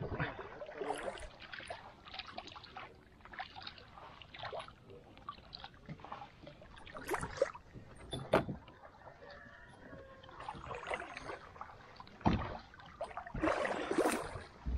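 Scattered knocks and clunks of gear against a plastic fishing kayak, then near the end a paddle stroke splashing in the water.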